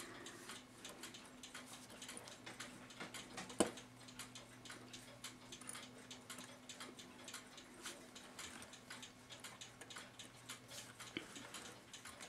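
Faint light clicks of brass clock wheels and pivots being worked into the plates of a New Haven clock movement as it is put back together, with one sharper click about three and a half seconds in, over a faint steady hum.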